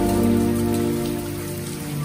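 Steady rain with slow music of long held notes underneath; the music dips a little near the end.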